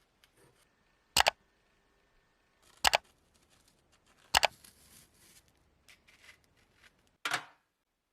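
Three sharp double clicks, about a second and a half apart, then a brief scraping burst near the end. These are the sounds of small parts of a rusted gun-shaped lighter being handled during restoration.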